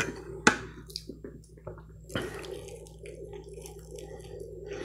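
Close-up chewing and wet mouth smacking, with a few sharp clicks about half a second and two seconds in; near the end, a bite into a piece of fried chicken.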